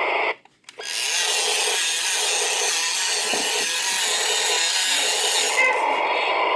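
Toy bulldozer's built-in electronic sound effect playing through its small, harsh-sounding speaker as a steady, gritty machine noise. It breaks off for about half a second just after the start, then runs on steadily.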